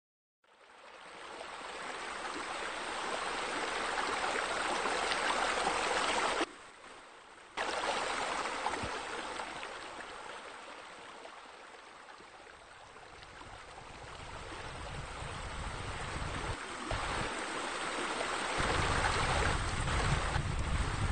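Water pouring over rock waterfalls into a pool: a steady rush of falling water that fades in, drops away briefly about six and a half seconds in, and swells again. A low rumble joins in for the last few seconds.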